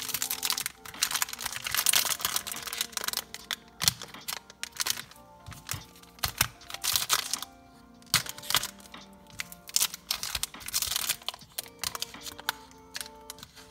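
Foil trading-card pack wrappers crinkling and crackling in quick irregular bursts as they are handled and nicked open one after another, over steady background music.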